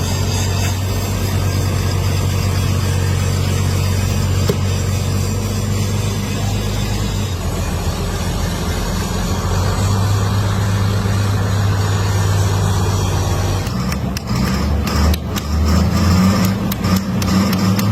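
A large engine or motor running steadily with a low hum. About fourteen seconds in, its pitch shifts and sharp metallic knocks and clatter join it.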